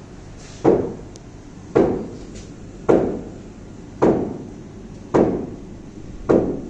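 Repeated heavy blows struck at a steady pace, a little more than one a second, six in all, each dying away quickly.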